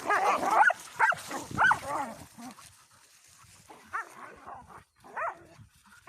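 Dogs barking and yelping in short, pitched calls: a quick run of them, a pause of about a second and a half, then two more single calls.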